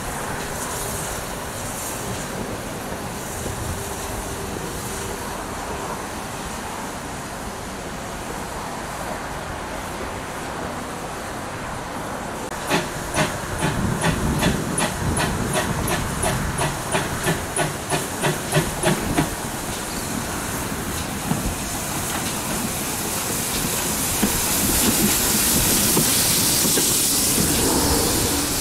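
GWR 6400-class 0-6-0 pannier tank locomotive 6430 working: about halfway in its exhaust beats begin, sharp chuffs at about two and a half a second for several seconds. Near the end a loud hiss of steam builds as the engine passes close by.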